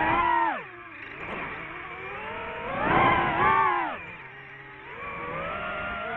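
DJI FPV drone's motors whining, the pitch surging up and dropping back with the throttle in two loud bursts, one near the start and one about three seconds in, then settling into a steadier tone near the end.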